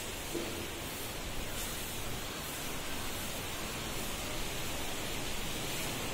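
Steady hiss of room noise, with faint rubbing of a board duster wiping chalk off a blackboard.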